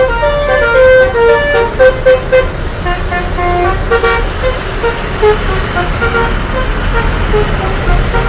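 Bus telolet horn, a multi-tone musical horn, playing a quick tune of short notes stepping up and down in pitch, busiest in the first few seconds, over a steady low rumble.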